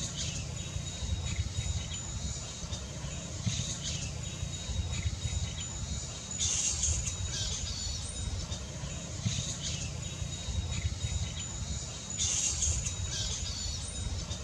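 Large flying foxes (Pteropus vampyrus) squabbling at their roost: harsh, short squawks every few seconds, with the loudest near the middle and near the end. Under them run a steady high insect-like whine and a low rumble.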